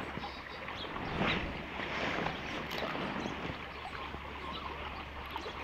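Small stream running fast over shallow riffles, a steady rush of water, with a little wind noise on the microphone.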